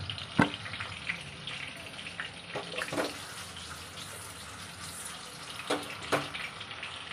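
Koftas sizzling steadily in shallow oil in a nonstick kadai over a low flame. A few sharp knocks come as the pan is swirled to roll them.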